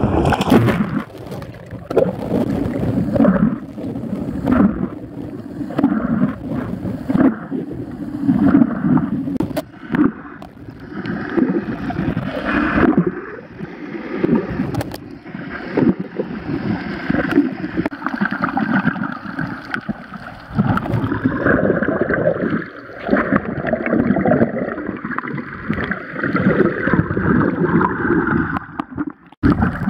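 Water sloshing and gurgling around a hand-held action camera during an ocean swim, the sound surging unevenly as the camera moves through and under the surface with the swimming strokes.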